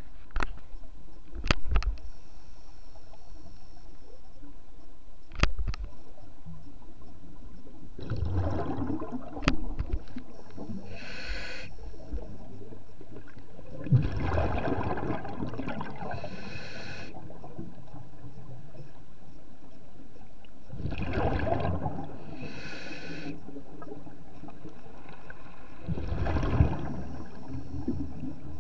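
Scuba diver breathing through a regulator underwater: four slow breath cycles about six seconds apart, each a gurgling rush of exhaled bubbles and a hiss of air through the regulator. A few sharp clicks come in the first six seconds.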